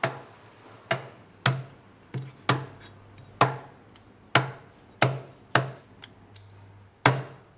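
A heavy knife chopping through a coral grouper's head and bones: about ten sharp chops, one or two a second, with a pause of about a second near the end.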